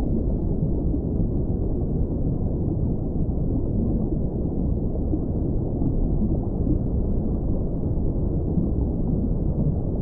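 Steady low rumble of ocean ambience from a whale-sounds recording, with no whale call or drip standing out.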